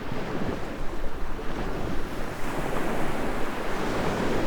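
Ocean surf washing onto the beach, a steady rush that swells about halfway through, with wind buffeting the microphone.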